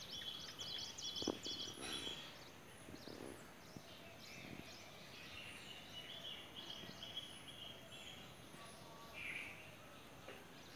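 Several birds chirping and calling, faint: a flurry of short high chirps at the start, and a high, evenly pulsed call lasting two to three seconds, heard once at the start and again around the middle. A soft low knock about a second in.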